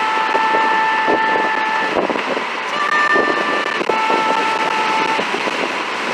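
Two-tone hi-lo siren alternating between a higher and a lower note, each held about a second, over steady traffic and road noise.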